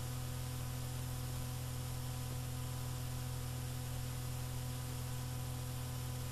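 Steady hiss with a low electrical hum underneath, unchanging throughout, and no music.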